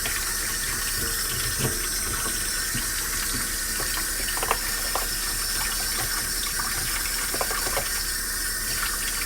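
Kitchen tap running steadily into a sink while a king crab is scrubbed clean under it, with scattered light knocks.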